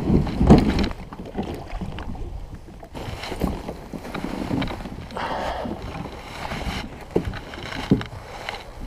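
Plastic fishing kayak being launched and boarded: knocks and thumps of the hull and gear, the loudest right at the start and a couple more near the end, with jacket rustling between them.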